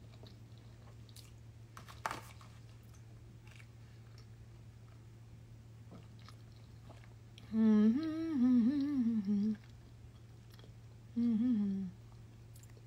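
A woman chewing a mouthful of pasta and humming with her mouth closed: a long wavering "mmm" about two thirds of the way through and a shorter one near the end, with a few faint clicks between them.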